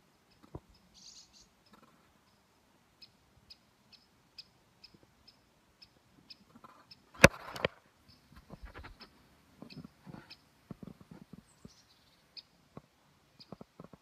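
A woodpecker giving short, sharp chirping calls, repeated about twice a second, with breaks. Tapping and knocks from fingers gripping the phone come in between, the loudest about seven seconds in.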